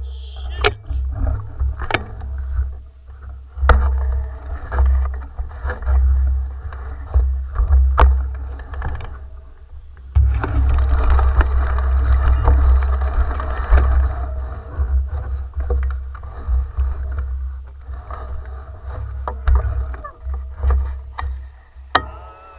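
Mountain bike descending a dirt singletrack at speed: wind buffets the camera microphone with a heavy rumble, over a rough rush of tyre noise on the dirt that swells and eases, broken by sharp knocks and rattles from the bike over bumps.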